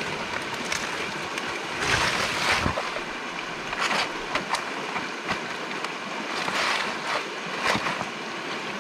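Steady rushing of a stream, with irregular short rustling and crunching sounds about every second, the loudest cluster a few seconds in.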